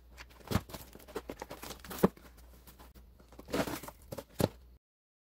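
Corrugated cardboard box being handled and torn open: irregular rips, scrapes and sharp knocks of cardboard, loudest about half a second, two seconds and four and a half seconds in. The sound cuts off suddenly near the end.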